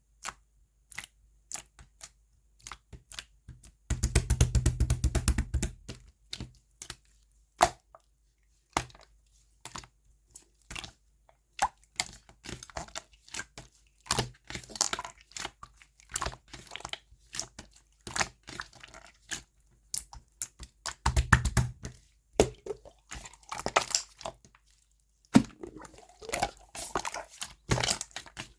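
Clear slime being squeezed, folded and poked by hand, giving sticky clicks and small pops of trapped air. Twice the clicks come in a fast, crackling run: about four seconds in and again about two-thirds of the way through.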